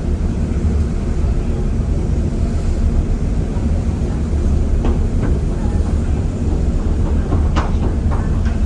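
Steady low rumble of a ferry's engines and hull heard on board. A few brief sharp sounds come about halfway through and again near the end.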